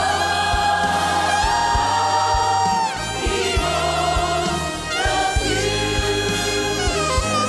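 Live gospel worship music: an alto saxophone plays a melody over a band with a steady drum beat, while a choir sings.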